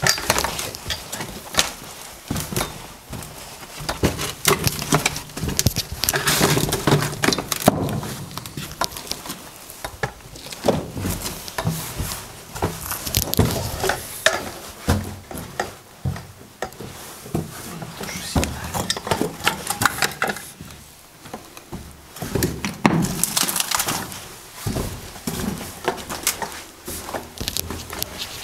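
Footsteps crunching and scraping over broken brick, rubble and grit on a concrete floor in a narrow concrete passage, an irregular run of clicks and crackles that is denser at times.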